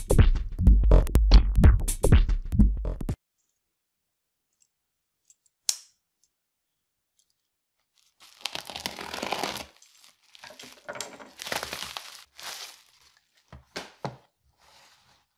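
Electronic intro music with a drum-machine beat that cuts off suddenly about three seconds in. Later, crinkling and crackling plastic bubble wrap as a bubble-wrap mailer is slit open with a knife, followed by several shorter bursts of rustling as the wrap and the cardboard box inside are handled.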